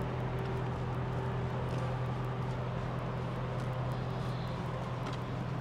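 Steady low drone of idling diesel semi-truck engines, holding one even pitch, over general outdoor traffic noise.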